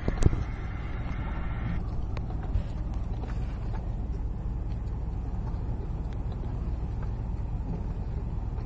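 Fire brush truck's engine running steadily as the truck creeps across a burning grass field, a low rumble heard from inside the cab. A few sharp clicks right at the start, and a higher steady hum that cuts off about two seconds in.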